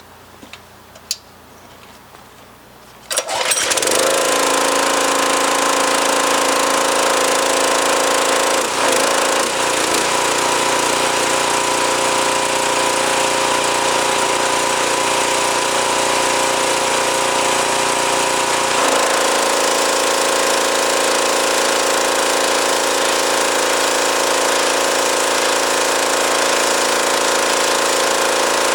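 Pressure washer starting up about three seconds in, then running steadily at full load: a constant machine hum under the hiss of the water jet spraying the car floor mats, its tone shifting slightly twice.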